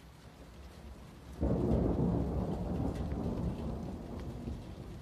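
Thunder: a low rumble builds, then breaks into a sudden loud peal about a second and a half in that rolls on and slowly fades.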